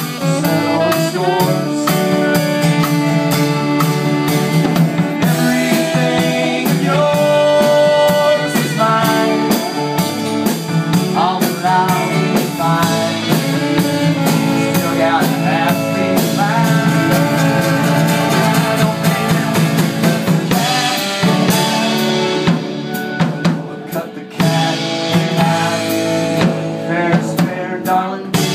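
Live band playing an instrumental passage: acoustic guitar and a drum kit keeping a steady beat, with a melodic lead line over it.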